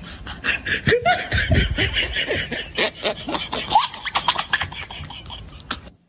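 People laughing hard in rapid bursts, which cut off abruptly near the end.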